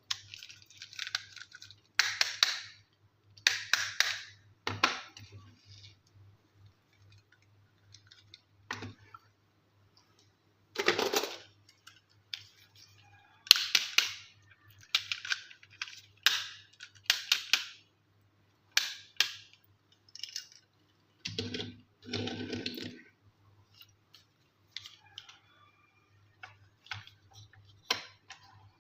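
Small plastic toy pieces and packaging being handled: irregular clicks, taps and short crinkly rustles, with a faint steady hum underneath.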